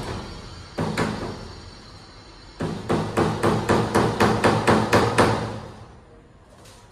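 Small hammer tapping a nail into a wooden door frame: one strike about a second in, then a quick run of about a dozen taps, roughly five a second, stopping about five seconds in.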